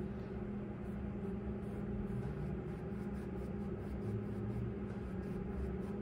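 Paintbrush stroking acrylic paint back and forth on a stretched canvas, a soft irregular scratching, over a steady low hum.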